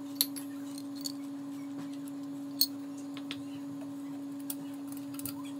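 A steady low hum, one unchanging tone, with a few scattered sharp ticks and clicks; the two loudest come about a quarter second and two and a half seconds in.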